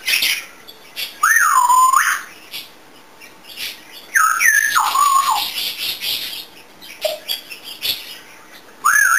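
African grey parrot whistling and squawking: three loud calls that glide up and then down in pitch, the middle one longer and harsher, the last starting near the end.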